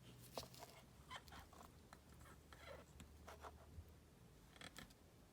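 Faint rustling and a few light taps as ribbon and paper craft materials are handled and shifted into place, over a low steady room hum.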